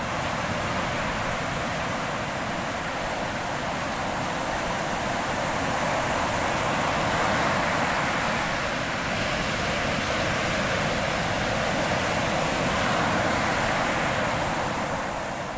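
Ocean surf breaking and washing up a sandy beach: a steady rushing wash of water that swells and eases a little as the waves come in, fading out near the end.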